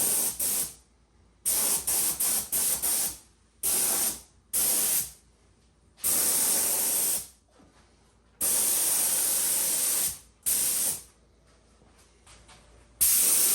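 Compressed-air mini paint spray gun hissing as it sprays paint in about eight short passes of half a second to two seconds each, with quiet gaps between trigger pulls.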